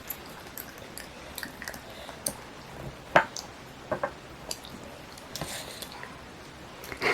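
Soft squishy sounds and scattered small clicks from handling and eating gummy Earth jelly candies, with one sharper click about three seconds in.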